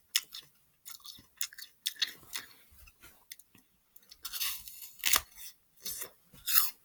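A person chewing a bite of crisp green apple: irregular, wet crunches in quick succession, a few louder ones near the end.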